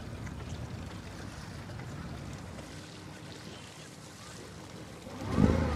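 Wind and water noise around a small aluminium boat on the water, steady and without speech, swelling louder near the end.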